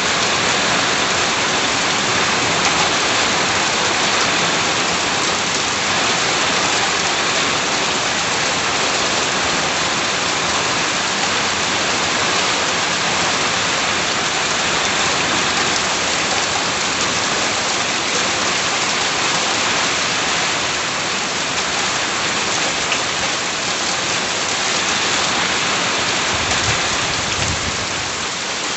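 Steady rain falling on and around a house, a dense, even hiss of drops.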